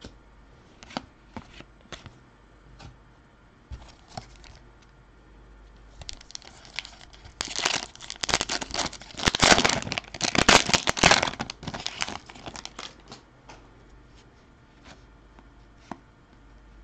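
Foil wrapper of an Upper Deck hockey card pack being torn open and crinkled, a dense crackling rustle loudest about halfway through. Light clicks and taps of cards being handled come before and after it.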